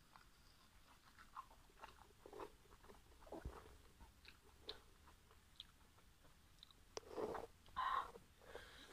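Faint close-up mouth sounds of chewing a juicy steamed pork momo: soft wet smacks and lip clicks, with louder breathy sounds through the mouth near the end.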